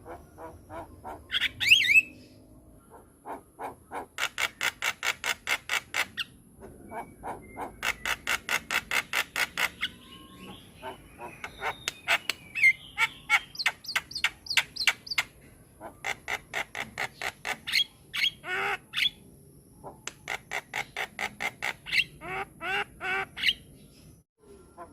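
Javan myna (jalak kebo) calling: runs of rapid harsh chattering notes, several a second, broken by short pauses and a few brief whistled glides.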